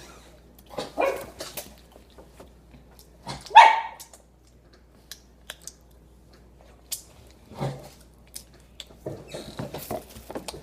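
A dog barking a few times, the loudest bark about three and a half seconds in.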